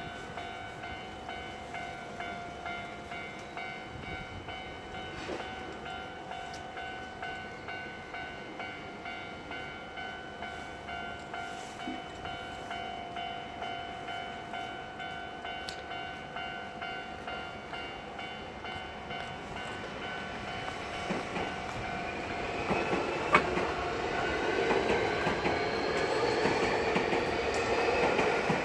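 Japanese level-crossing warning bell ringing in a steady, regular pulse of dings. From about 21 seconds in, a Keio Inokashira Line electric train comes through and gets louder: its motor whine rises in pitch as it gathers speed, over wheel rumble and clatter, with one sharp click partway through.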